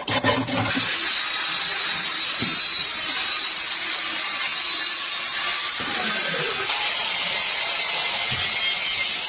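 A few quick rasping strokes, then from about a second in a steady, even hiss, strongest in the high range, from a workshop tool at work.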